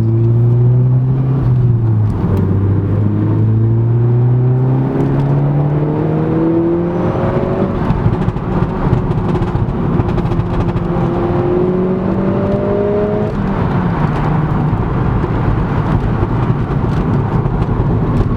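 Audi S1's turbocharged four-cylinder engine pulling hard. Its note climbs slowly and drops sharply at each gear change, three or four times in all.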